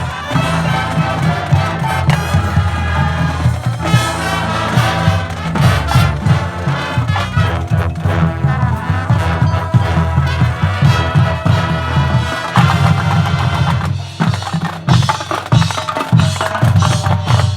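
Marching band playing a field show: brass over a drum line, loud and continuous.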